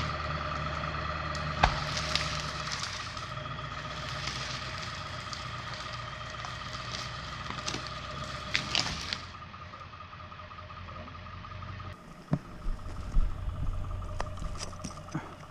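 Ford F-350 pickup truck running under load, a steady low rumble with a whine, as it drags a log along the ground on a rope, with crackles and scrapes from the log. The truck noise drops after about nine seconds, and near the end come irregular crunching steps and clicks.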